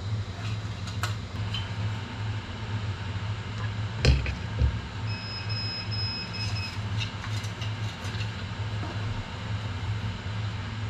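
Steady low mechanical hum throughout, with light clicks, two knocks about four seconds in, and a thin high whistle lasting a second or two after that.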